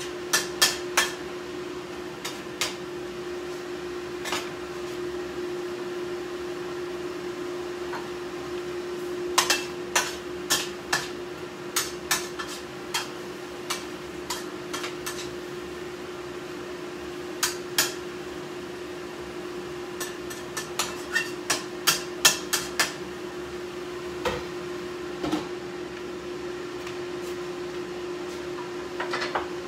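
Kitchen work: clusters of sharp knocks and clinks from utensils and cookware, heard over a steady machine hum.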